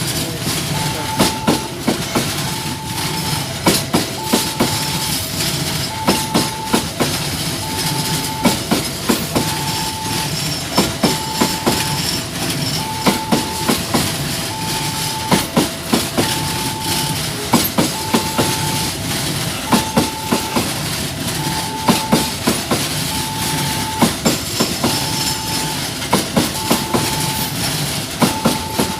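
Railway wagons rolling past, their wheels clicking steadily over the rail joints, with a two-note electronic tone repeating about every second and a half throughout.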